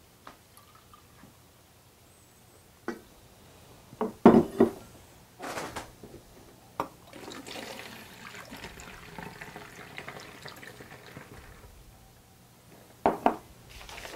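Water poured from a glass measuring cup through a metal funnel into a plastic spray bottle, a steady stream for about five seconds. A few sharp knocks come before the pour and a couple more near the end.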